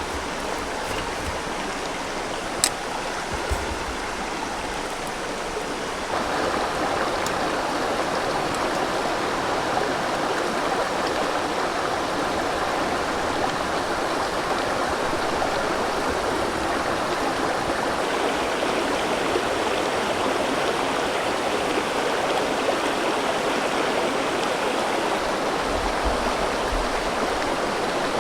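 River water flowing steadily with a constant rush, which becomes louder and fuller about six seconds in.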